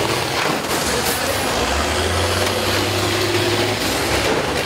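School bus engines running as the derby buses shove against one another, over a constant dense din. One low, steady engine note stands out in the middle for about two seconds.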